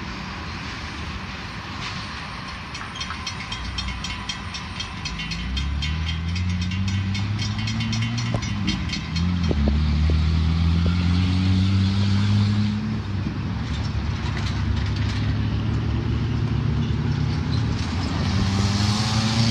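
The fading rumble of a departing freight train. From about five seconds in, road vehicles, including a pickup truck and SUVs, pull away and drive past one after another, their engines rising in pitch as they accelerate.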